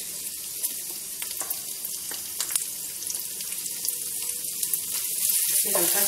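Chopped ginger, garlic and green chillies sizzling in hot oil in a nonstick frying pan: a steady hiss with scattered crackles. It grows louder about five seconds in, as a wooden spatula starts stirring.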